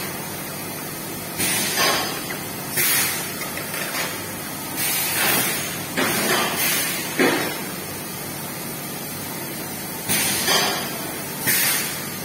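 Bottle labelling machine on a water-bottling line running with a steady background noise, broken every one to two seconds by short hissing bursts.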